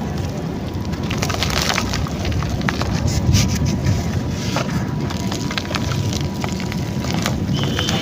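Dry clay being crushed and crumbling, with irregular sharp crackles and snaps over a steady low rumble.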